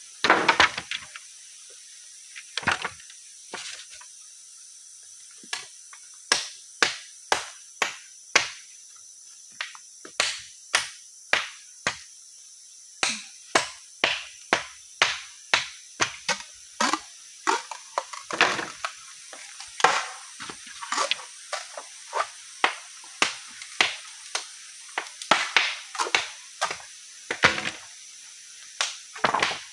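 Steady high chirring of crickets or other forest insects, with a run of sharp knocks. The knocks are sparse at first, then come one or two a second from about five seconds in.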